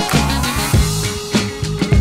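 Background rock-funk music with drums, bass and guitar.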